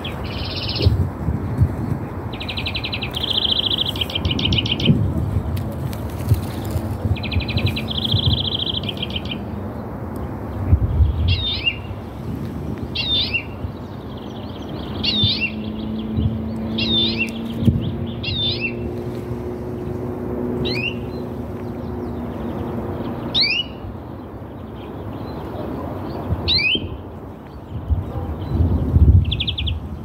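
Small songbirds calling. Buzzy rattling calls come in the first third, then a run of short, sharp chirps that drop in pitch, repeated every second or so. Low rustling and knocks run underneath, loudest near the end, with a faint steady hum in the middle.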